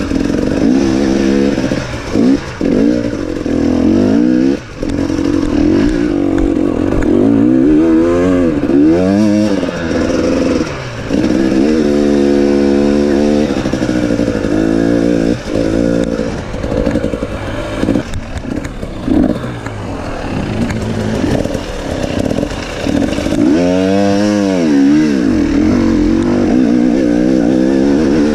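Enduro dirt bike engine ridden off-road, its revs rising and falling again and again with throttle and gear changes, with brief drops where the throttle is shut.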